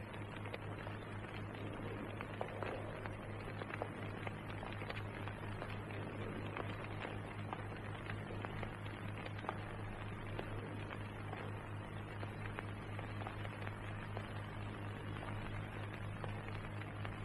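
Steady low mains hum with faint hiss and scattered light crackles: the background noise of an old film soundtrack, with no speech or music.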